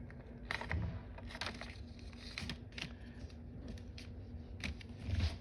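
A paper origami model being handled and folded by hand: soft, scattered crinkles and taps as the paper is pressed and creased, over a faint steady hum.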